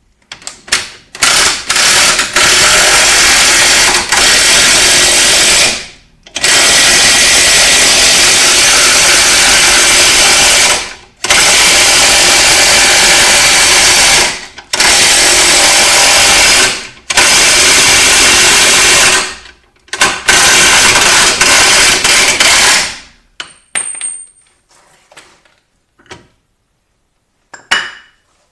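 Impact wrench hammering in about six long bursts of a few seconds each, with short pauses, as it drives the screw of a ball joint press to push a new lower ball joint into the front suspension arm. A few light clicks of tools follow near the end.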